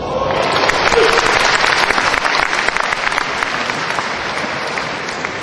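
Audience applauding, swelling in the first second and then slowly tapering off.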